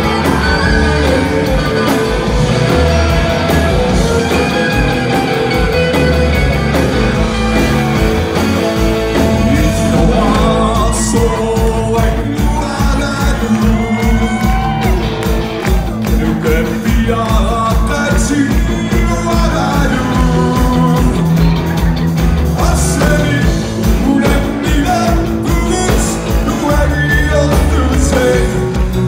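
Live rock band playing, with electric guitar, electric bass and drums under a man's singing voice, amplified in a large hall.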